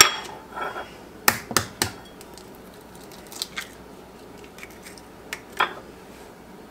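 A few light clicks and taps of a small glass dish on a countertop and an egg being tapped and cracked into it.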